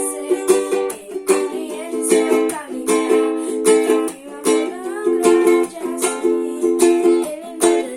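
Ukulele strummed in chords, in a steady rhythm of about two strums a second.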